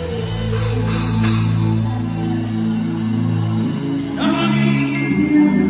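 Live worship band music: held keyboard chords over a bass line with light drum kit and cymbal playing. The chord changes and a voice comes in singing about four seconds in.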